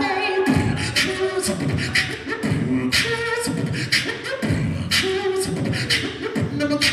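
Beatboxing into a handheld microphone, amplified: deep kick-drum bass sounds and sharp snare-like clicks in a steady beat, mixed with short held vocal notes.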